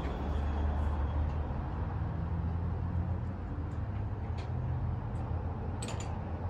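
Rock slab saw running: a steady low motor hum, with a few light clicks near the end.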